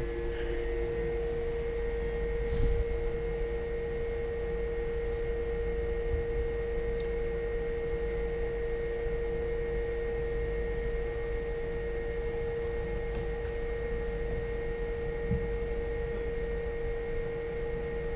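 A steady machine hum with one clear, constant tone and a low rumble underneath, with a couple of faint knocks.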